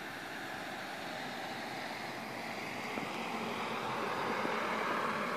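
A passing vehicle's steady rushing noise that slowly swells, loudest near the end.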